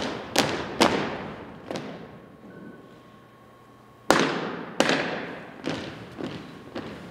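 Unarmed exhibition drill team stamping and slapping in unison on a hardwood gym floor: sharp cracks that echo in the gym. Three come in quick succession, then after a lull of about two seconds a loud strike about four seconds in, followed by several more spaced hits.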